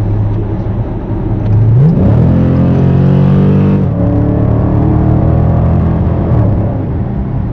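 Dodge Challenger T/A's 392 (6.4-litre HEMI V8) accelerating, heard from inside the cabin. The engine note climbs about two seconds in and runs loud, then steps down in pitch about four seconds in and eases again near the end.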